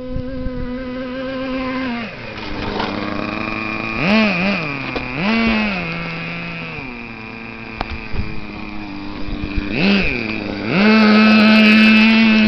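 Nitro RC truck's small glow-fuel engine running with a high, buzzing note, revved in a few quick blips a few seconds in. It is held at high revs near the end, the loudest part.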